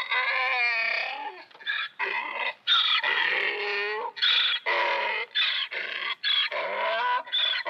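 An animal calling over and over: about a dozen short, high, whining cries in quick succession, some sliding down in pitch.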